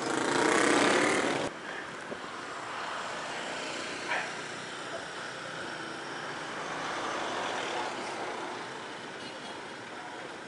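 Steady street-traffic and road noise picked up while riding an electric kick scooter through city traffic. A louder pitched sound fills the first second and a half and cuts off suddenly, and a brief sharp blip comes about four seconds in.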